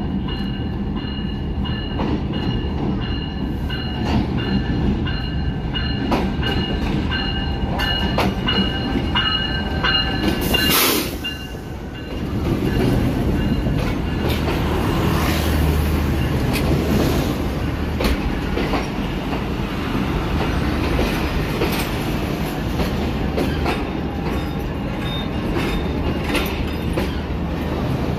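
A diesel-hauled passenger train, the Jaffar Express, arrives and rolls slowly past along the platform. Its locomotive rumbles and its wheels click over the rail joints. Steady high-pitched wheel squeal runs through the first ten seconds, and there is a brief loud hiss about eleven seconds in.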